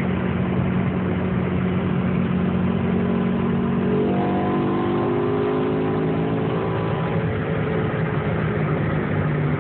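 BMW M6 convertible's V10 engine running steadily under road and wind noise in the open car. From about four seconds in, a whine rises slowly in pitch for a few seconds and then fades.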